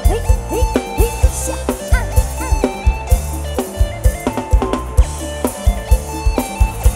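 Live amplified band playing an upbeat instrumental passage: a drum kit keeps a steady beat of kick and snare hits under bass, with electric guitar and keyboard notes, some of them bent in pitch.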